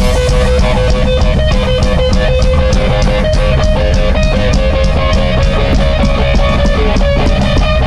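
Live punk rock band playing electric guitar and drums, with one long held note sounding over a steady drum beat.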